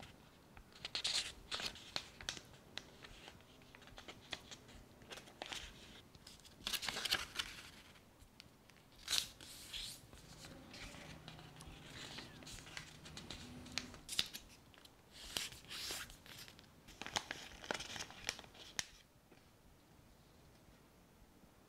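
A sheet of white printer paper being folded and creased by hand, in irregular bursts of rustling and crinkling, then crumpled into a ball.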